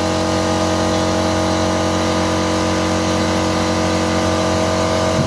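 A motor running steadily at constant speed: a loud, even, pitched hum with no change in speed.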